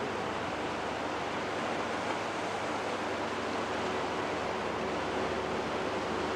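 Steady rush of sea waves washing against a rocky shore.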